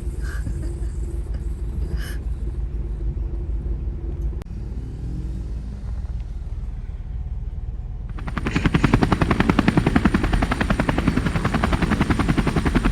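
ATV engine running at a low steady rumble, then revving hard from about eight seconds in with a loud, rapid chopping pulse, as the ATV is bogged in mud and needs towing out.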